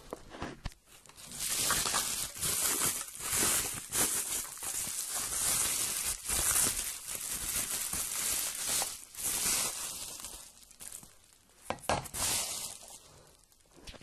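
Bubble wrap crinkling and rustling as it is handled and pulled off a drinks can, with a couple of sharp knocks near the end.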